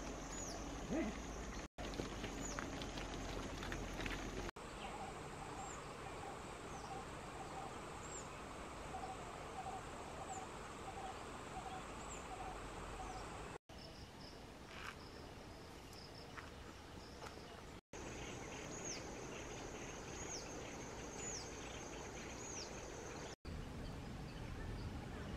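Outdoor field ambience with a steady hiss. High, thin downward chirps repeat about once a second at the start and again in the last few seconds, and a lower repeated call runs through the middle. The sound drops out for an instant a few times.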